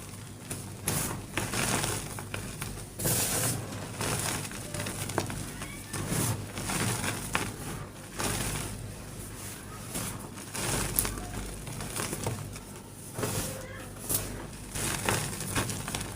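Red-painted, heart-shaped gym chalk block being crushed: a continuous run of irregular crunches and crumbles.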